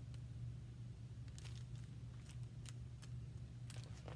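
Steady low hum with a few faint clicks and rustles of a hardcover picture book being handled and turned around.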